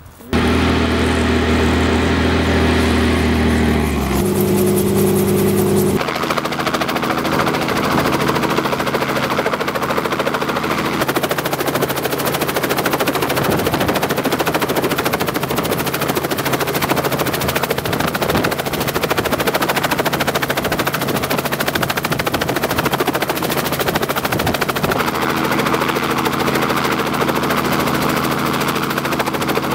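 Helicopter running steadily with a rapid rotor chop and a steady motor tone that shifts in pitch a few seconds in.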